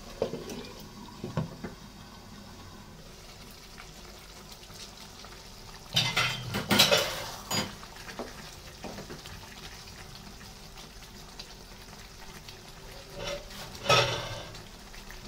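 A glass lid and a wooden spatula knocking and scraping against a nonstick pan as a chicken curry is stirred. There are a few light clicks near the start, a loud burst of clatter about six to seven and a half seconds in, and another knock near the end, over a low steady simmer.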